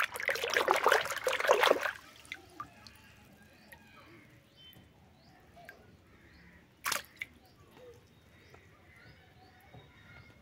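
Water splashing and sloshing as a small plastic toy rooster is swished by hand in a plastic basin of water for about two seconds, then drips into the water, with a short sharp splash about seven seconds in.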